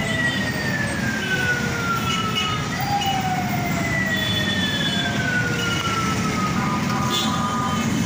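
Heavy city traffic running steadily, with a siren sounding two long falling sweeps: one at the start and a second beginning about three seconds in.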